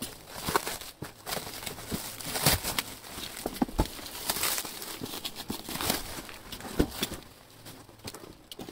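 Clear plastic stretch wrap crinkling and tearing as it is pulled off a cardboard box, with irregular sharp snaps and knocks as the box is turned over.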